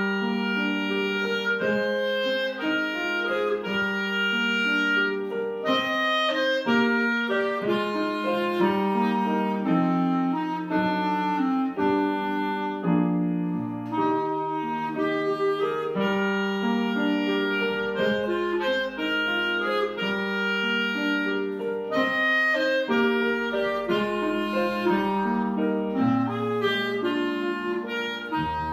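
Clarinet playing a continuous melody of quickly changing notes, with piano accompaniment underneath.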